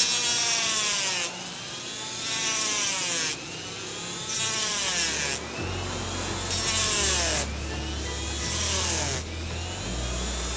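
Rotary tool with a small cutting disc grinding a pocket into a part, biting in again and again. Its whine dips and recovers with each pass, about every second and a half.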